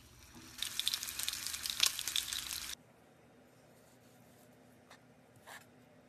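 Sous vide chicken breast searing in a hot pan: a loud, dense sizzle with many small pops, starting just after it is laid in and cutting off abruptly about three seconds in. Then quiet, with two faint soft knocks near the end.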